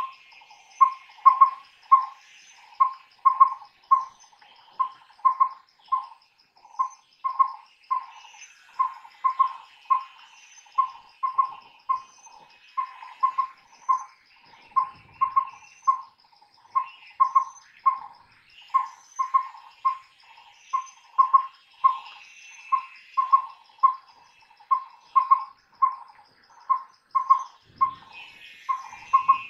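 Collared owlet hooting: short mellow whistled notes at one pitch, in quick pairs and small groups repeated without a break. A steady high insect trill and the chirps of other birds run behind.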